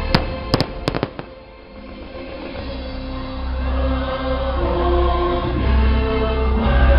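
Fireworks going off in a quick cluster of four or five sharp bangs in the first second, over orchestral show music with choir. The music dips after the bangs, then swells louder toward the end.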